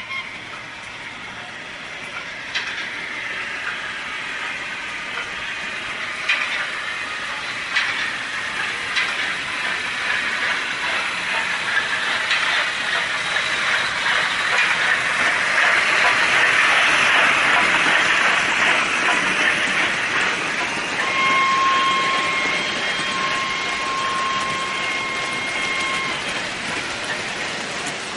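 Märklin HO model timber train rolling over the layout's track and points: a steady rolling rattle with sharp clicks as the wheels cross the turnouts, growing louder as the wagons pass close about two-thirds of the way through. A steady high-pitched whine sounds for about five seconds near the end.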